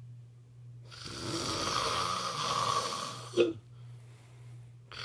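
Snoring: a long, noisy breath lasting about two and a half seconds that ends in a short, loud snort, with the next snoring breath starting near the end.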